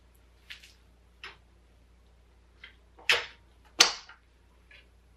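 Folding stem and latch of a Gotrax XR Elite electric scooter being worked by hand: a scatter of short clicks and knocks. The two loudest come close together a little past three seconds in.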